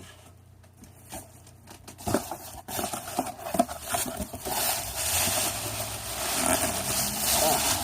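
Packaging of a boxed anime figure being handled and opened: a few sharp clicks, then continuous scraping and crinkling rustle that grows louder.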